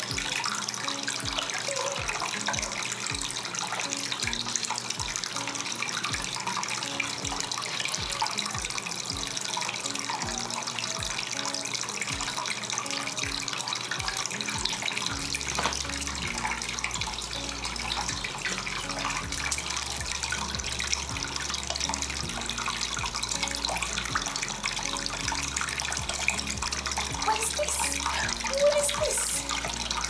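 Water trickling steadily in a small homemade cement tabletop fountain, pumped up a tube and spilling over rocks into the basin. Background music plays under it, with a steady beat of about two pulses a second in the first half that gives way to held bass notes about halfway through.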